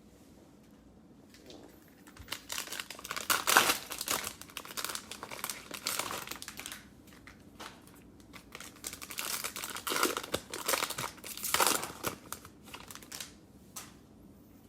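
Cellophane wrapper of a basketball-card cello pack crinkling and tearing as it is ripped open, in two spells of a few seconds each.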